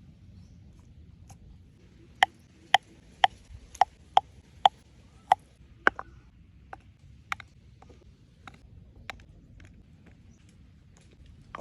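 A series of sharp knocks: about eight strong ones, roughly two a second, then a few scattered fainter ones.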